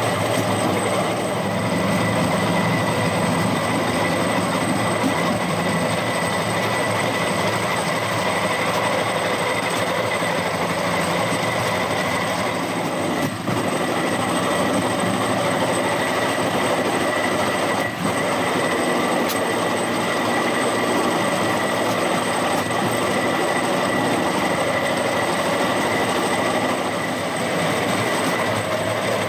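Rail-mounted golf cart running along the rails: steel wheels rolling on the track with a steady drone and a thin, steady high-pitched whine.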